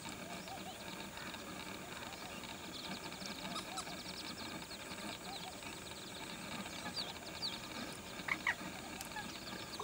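Lesser whistling duck ducklings peeping: a stream of short, high, falling chirps, with two louder notes close together about eight seconds in.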